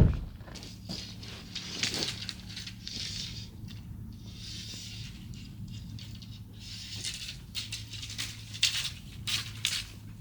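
A heavy thump, then repeated rustling, scraping and small clicks as things are handled, over a steady low hum.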